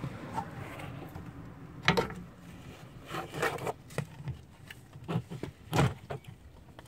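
Scattered clinks, knocks and scrapes of hand tools and metal parts being handled while working on a car's rear shock absorber, the loudest knocks about two seconds in and near six seconds. A background rush fades away over the first second or so.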